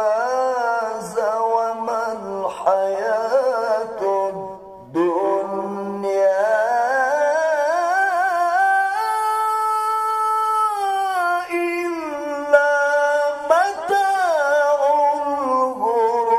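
A man reciting the Quran in the melodic tilawah style into a handheld microphone, in long, ornamented phrases. After a short breath about five seconds in, one long phrase climbs slowly to a held high note and then winds back down.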